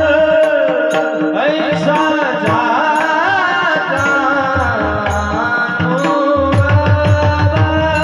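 Warkari kirtan music: a singer's voice sweeping through an ornamented melodic line over steady held harmonium tones, with a hand drum and small hand cymbals keeping the beat. The drum thins out in the middle and comes back strongly near the end.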